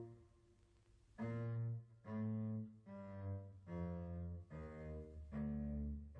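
Background music: low bowed strings playing a slow line of separate held notes, entering about a second in after a brief lull.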